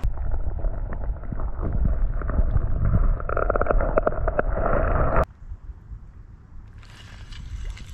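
Muffled water sloshing and bubbling picked up by an action camera's microphone held underwater during a small bass's release, dull with many small clicks. It cuts off abruptly about five seconds in, leaving fainter water noise.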